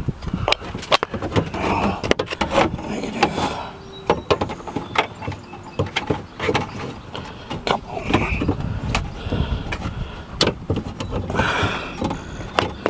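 Irregular clicks, clanks and knocks of hands and tools fitting a power-window motor and its gear back onto the window regulator inside a vehicle door.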